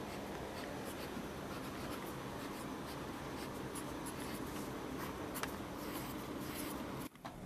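Wooden pencil writing on lined notebook paper, scratching out words in short strokes over a steady low room hum. The sound drops out briefly near the end.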